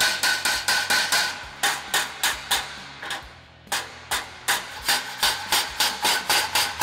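Hammer blows on a sheet-metal flange held over a forming die, a quick steady run of sharp metallic strikes, about three to four a second, with a short pause about three seconds in. The flange is being hammer-formed and tuned up to fold its steps in and shrink the gathered metal.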